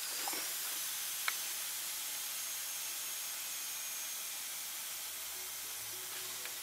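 Steady hiss of water rushing through a school bus's newly fitted plastic water lines as they fill and pressurize, with a faint thin whistle for the first few seconds and one small click. Background music comes in near the end.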